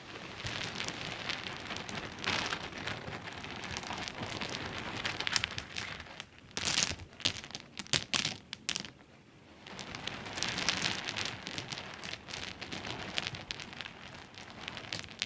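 Small pebbles clicking and rattling against each other in dense runs of fast taps, with a few sharper, louder clicks just past the middle and a short pause about two-thirds of the way through.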